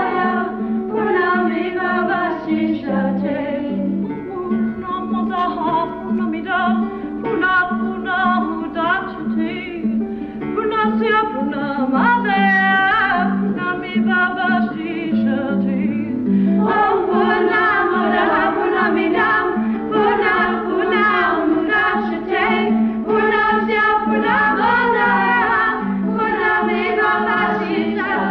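A group of voices singing a devotional song with instrumental accompaniment, over a repeating low pulse.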